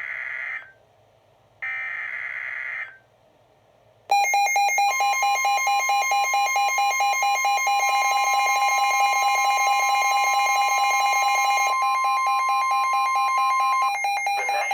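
Emergency Alert System signals over NOAA Weather Radio: three short warbling digital data bursts, the end-of-message code closing the previous alert. About four seconds in, a loud, rapidly pulsing alarm starts, and over it the National Weather Service warning alarm tone holds one steady high note for about nine seconds, announcing a new warning.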